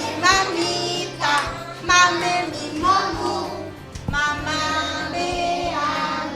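Children singing a song over instrumental backing, with held notes changing every second or so.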